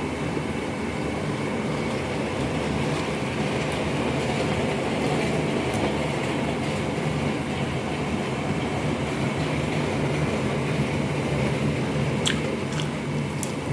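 Steady mechanical hum and rushing noise, with a few sharp clicks near the end.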